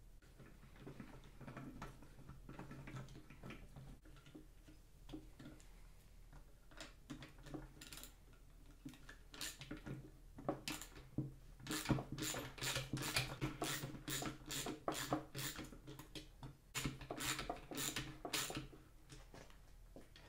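Hex bolts being turned by hand with a bit-holder screwdriver into the end cap of a stainless-steel Scorpion exhaust silencer. There are scattered light metallic clicks at first, then a quick run of sharp clicks through the second half.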